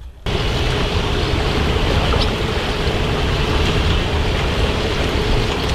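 River water rushing steadily through a weir, a dense continuous noise that cuts in abruptly just after the start, with a faint steady hum underneath.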